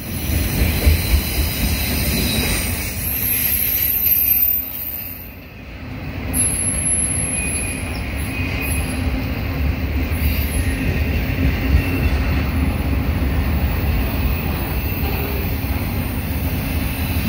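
CSX freight train's autorack cars rolling past close by: a steady low rumble of steel wheels on rail that dips briefly about five seconds in. Thin high wheel squeal rides over it from about six seconds on.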